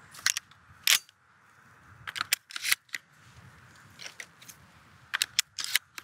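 Cartridges being pushed into the magazine of a Browning Maxus semi-automatic shotgun and the gun being handled: a series of sharp metallic clicks, in small clusters near the start, two to three seconds in, and again near the end.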